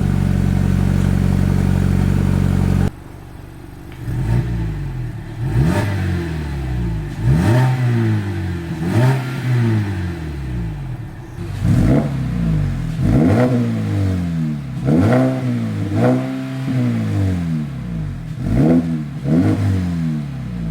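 2017 Mazda 3's 2.5-litre four-cylinder engine running through a newly fitted Borla S-Type cat-back exhaust. It holds a steady note briefly, then, after an abrupt change, is revved again and again, each rev rising sharply and dropping back.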